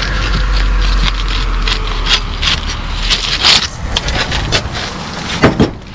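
Scraping, crackling and irregular knocking of brick and mortar being broken out and pulled away above a rusted angle-iron lintel, with a strong low rumble during the first two seconds.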